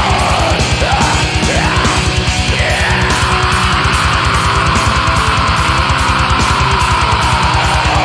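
Heavy metal background music with guitar over a fast, steady beat, with a few sliding guitar notes.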